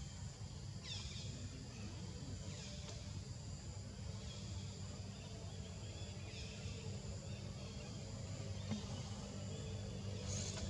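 Outdoor ambience: a steady low rumble with a few short, high, falling chirps scattered through it.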